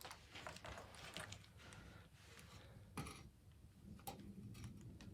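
Faint scattered clicks and light taps of a thin heat-resistant glass pane being handled against a wood stove door's metal frame, with two slightly sharper taps about three and four seconds in.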